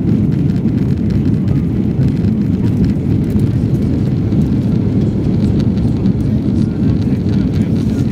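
Airbus A330-200 passenger cabin during the climb after takeoff: a loud, steady low rumble of jet engines and airflow.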